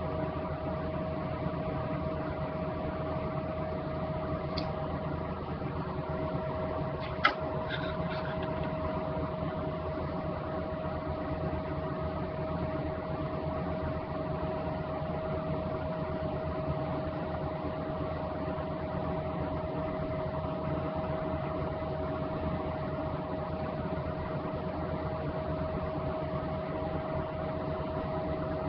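A steady mechanical hum with a constant tone, and a single short click about seven seconds in.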